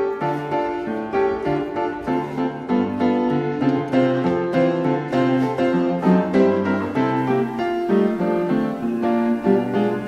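Background music led by piano, a flowing run of short notes at an even pace.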